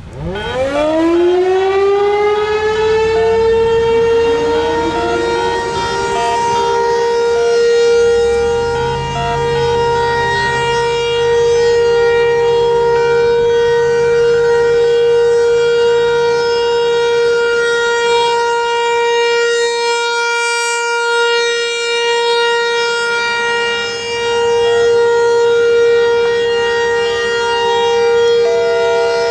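Federal Signal 508 outdoor tornado warning siren on its weekly test, winding up from a low growl to a steady high wail within about two seconds, then holding that pitch while its loudness slowly swells and dips as it rotates. A second, slightly lower siren tone glides up a few seconds in and sounds along with it.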